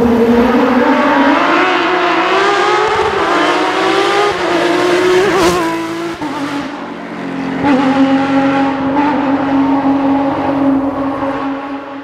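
A Porsche 911 GT3 rally car's flat-six engine running hard at high revs. Its pitch climbs steadily for about five seconds, then there is a short sharp crack and the revs drop about halfway through, before the engine holds high and steady to the end.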